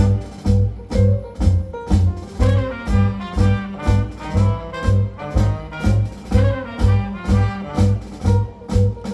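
A live jazz quintet of trumpet, saxophone, piano, bass and drums playing a swing tune. A bass line pulses about twice a second under the horn and piano lines.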